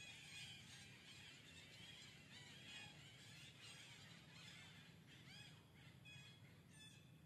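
Faint birds chirping, with many short chirps and a few clearer rising-and-falling calls near the end, over a low steady hum.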